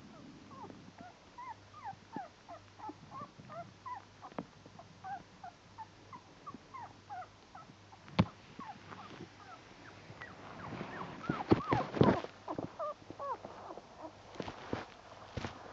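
Newborn puppies squeaking and whimpering: many short, high, falling squeaks, several a second. From about ten seconds in, rustling and knocks from handling drown some of them, with a sharp click about eight seconds in.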